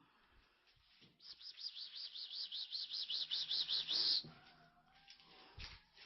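A bird singing a fast, high-pitched warbling trill of about seven notes a second that lasts about three seconds, followed by a faint short call and a soft thump near the end.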